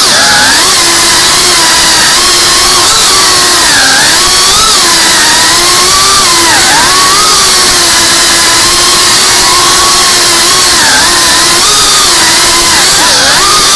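FPV quadcopter's motors and propellers whining loudly and steadily, the pitch dipping and rising with throttle changes several times.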